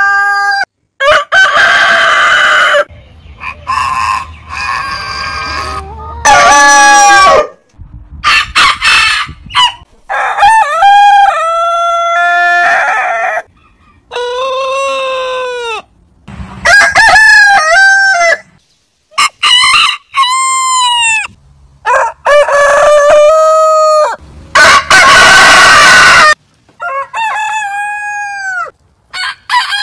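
Roosters crowing one after another, about ten crows from different birds with abrupt cuts between them. Some are long drawn-out crows with a falling tail, others shorter and harsher.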